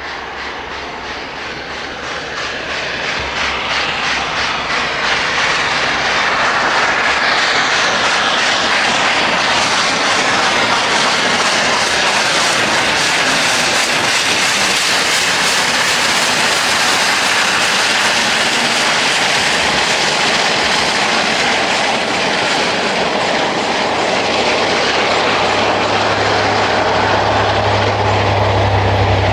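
LNER A4 Pacific steam locomotive 60009 working a passenger train, its exhaust beating rapidly and blending into a continuous sound. It grows louder over the first five or six seconds as the engine approaches, then stays loud and steady.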